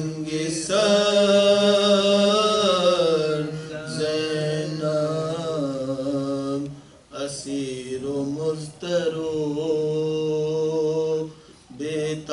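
A man's unaccompanied voice chanting a soz-o-salam, an Urdu elegiac lament, in long held, wavering phrases. He breaks off briefly about seven seconds in and again near the end.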